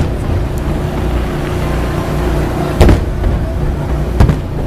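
Fireworks shells bursting overhead: two sharp bangs about a second and a half apart, the first near the middle and the second near the end, over a steady low rumble.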